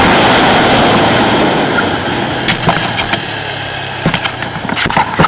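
Wind and engine noise from a TVS Apache RTR 200 4V motorcycle slowing down from high speed, the rushing fading steadily. A low steady engine hum comes through as the bike slows, and a few clicks and knocks come near the end.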